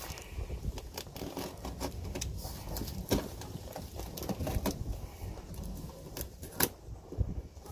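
Hands opening a long cardboard box: scattered irregular taps, scrapes and rustles of the cardboard.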